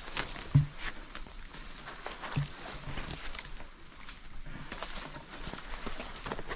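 A steady, high-pitched drone of forest insects runs throughout, with rustling and snapping of undergrowth and a couple of short low knocks as branches and vines are grasped and pushed aside.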